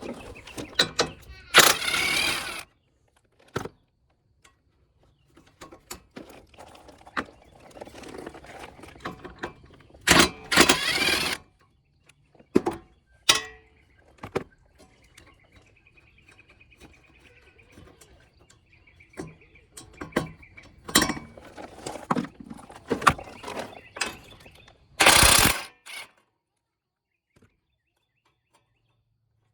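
Bolt removal on a car's front end: three short runs of a power tool, about a second each, with clicks, knocks and clatter of tools and bolts between them.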